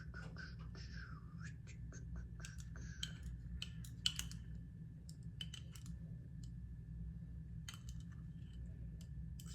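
Scattered light clicks and taps from handling dressing bottles and food containers at a table, with one sharper click about four seconds in, over a faint steady hum.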